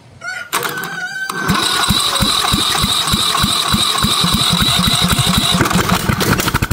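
Briggs & Stratton lawn-tractor engine cranked by its electric starter, jumped straight from a battery lead to the starter terminal: a short whine as the starter engages, then loud rapid chugging pulses as the engine turns over and fires. With the fuel shutoff powered but no choke rigged, it fires but does not settle into running, and the pulses turn ragged near the end.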